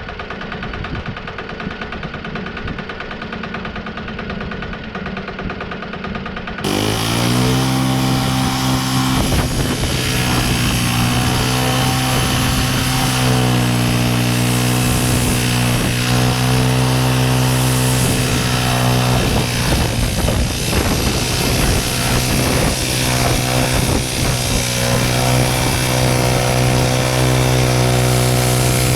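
Wood-Mizer LT15 portable band sawmill running steadily. About seven seconds in the sound turns abruptly louder, the engine rising briefly in pitch and then holding a steady higher speed as the band blade cuts through the Douglas fir log.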